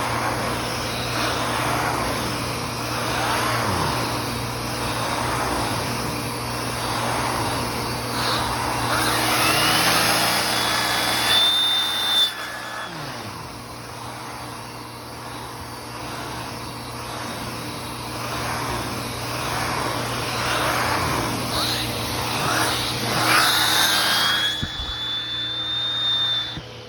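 Bissell CleanView 3536 upright vacuum cleaner running, a steady motor hum under a loud rush of airflow. Twice a whine rises in pitch and holds high, and each time the sound drops off suddenly.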